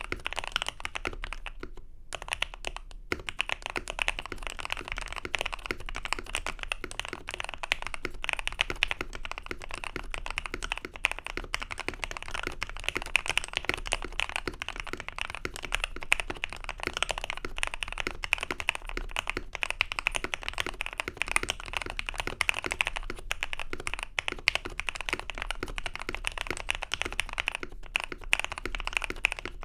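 Fast continuous typing on a Mode Eighty custom mechanical keyboard: a dense, even stream of key clacks, with a brief pause about two seconds in.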